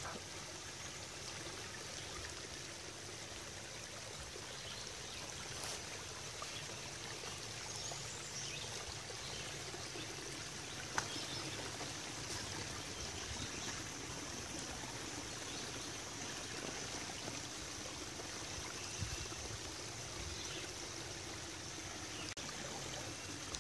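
Small woodland creek trickling steadily over rocks, with one short click about halfway through.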